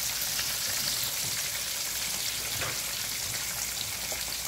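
Whole fish frying in hot oil in a wok: a steady sizzle scattered with small crackles and pops.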